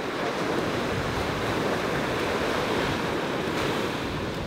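Sea surf breaking and washing up the beach, a steady rush that swells and then eases a little near the end.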